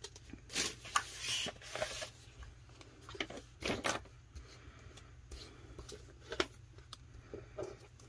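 Rustling and sliding of a sheet of decals being picked up and handled on a tabletop, in a series of short bursts, busiest in the first two seconds.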